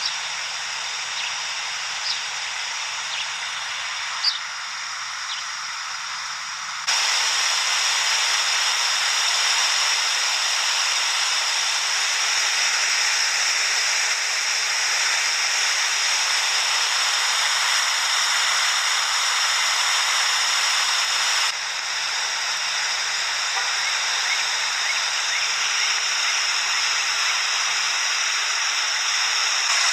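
Fast-flowing floodwater rushing over pavement and through an overflowing creek, a steady noise of moving water. It jumps louder about seven seconds in and drops a little about twenty-one seconds in.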